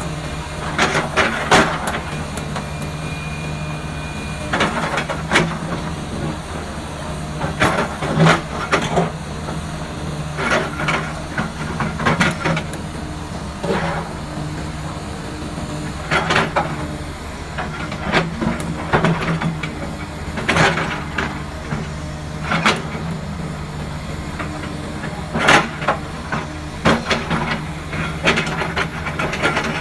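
Komatsu PC300 hydraulic excavator's diesel engine running steadily under load. Over it come irregular clusters of scraping, knocking and clattering every few seconds as the steel bucket digs into rock and rubble and strikes stones.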